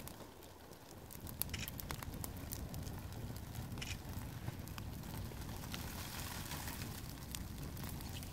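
Dry palm fronds burning in an open fire: a steady low rush of flame with scattered sharp crackles and pops.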